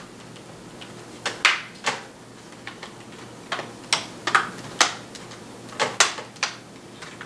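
Plastic snap clips of an Asus K53TA laptop's screen bezel popping into place as it is pressed down around the edges: about a dozen sharp clicks, one after another at uneven spacing.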